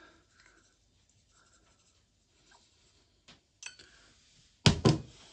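Faint scratchy sounds of salt being spooned and sprinkled over raw chicken breasts, with a few light clicks, then two sharp knocks in quick succession near the end.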